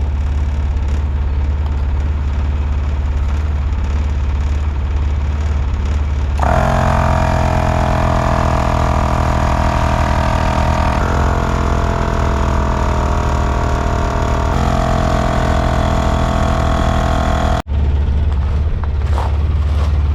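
Gobege 12-volt portable air compressor running steadily under load, inflating a large tractor front tire. About six seconds in, a higher whine joins the low motor hum, and the sound drops out for an instant near the end.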